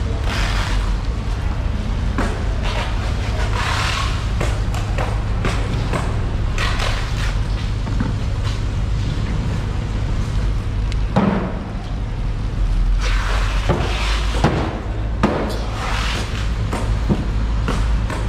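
A large knife cutting through a giant marlin's skin and flesh: a series of short scraping, slicing strokes, over a steady low hum.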